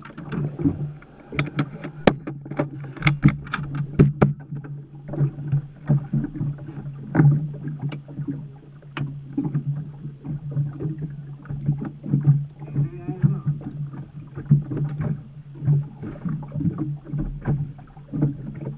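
Racing hydroplane idling on the water, heard from inside its cockpit: a steady low engine hum under frequent sharp knocks and slaps of the hull and cockpit fittings.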